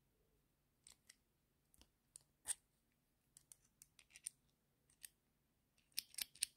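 Scattered small metal clicks and taps of a steel 1/4-inch hex bit and a knurled bit-holder adapter being handled, as the bit is pushed into the adapter's hex socket, with a quick run of louder clicks near the end.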